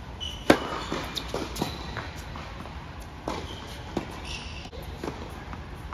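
Tennis serve: the racket strikes the ball with a sharp crack about half a second in, followed by several more ball hits and bounces, echoing in an indoor tennis hall. Brief high squeaks from sneakers on the hard court come between the hits.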